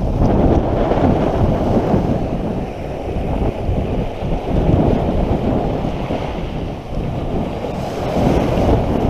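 Small waves breaking and washing up a shingle beach, under strong wind buffeting the microphone with a heavy low rumble. A wave surges in with a louder hiss near the end.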